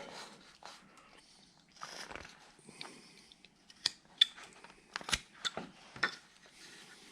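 Hand carving tool cutting and paring wood: soft scraping slices broken by a handful of sharp, irregular crunchy clicks as chips break away, the loudest about four and five seconds in.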